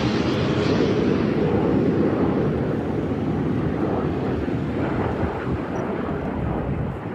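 Engine rumble of aircraft in an air-show flypast, fading as they fly away: the higher part of the sound dies out within the first second or two, and the low rumble slowly grows quieter.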